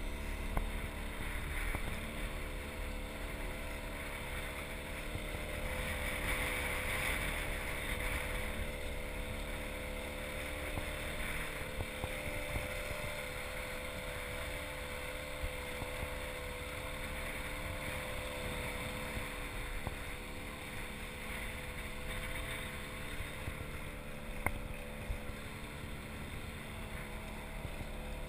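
Outboard motor of an inflatable boat running steadily, with wind and water noise.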